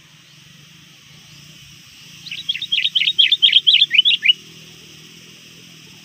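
Sooty-headed bulbul calling: a quick run of about a dozen short, falling notes lasting about two seconds, starting about two seconds in.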